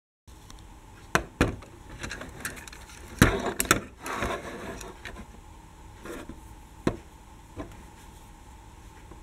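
Hands handling small die-cast toy trams: scattered sharp clicks and knocks, loudest about three seconds in, with a stretch of rustling around then.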